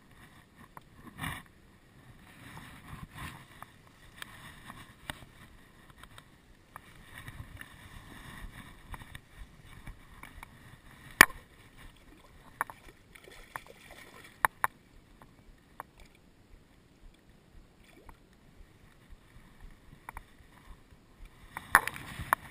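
Handling noise close to the microphone as an angler works in tall bankside grass to land a trout: soft rustling and scraping, broken by scattered sharp clicks and knocks, the loudest about halfway through, two more a few seconds later, and a cluster near the end.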